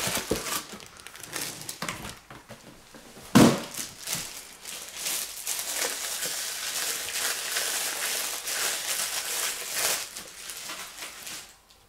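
Clear plastic bag crinkling and rustling as a thermos food jar is slid out of it, with a single knock about three and a half seconds in.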